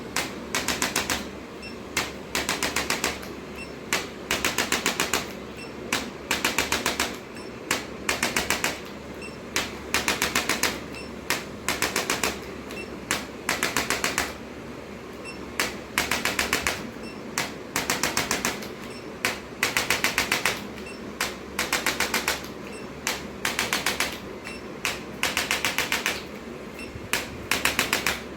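Short bursts of rapid mechanical tapping from a handheld chiropractic adjusting instrument, each burst a quick run of taps lasting under a second. The bursts repeat at an uneven pace, one to two times a second.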